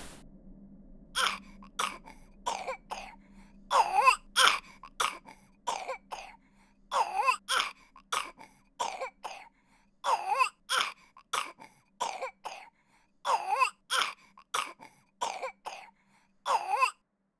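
A sick child coughing over and over in short fits, about two coughs a second with brief pauses, starting about a second in and going on until near the end.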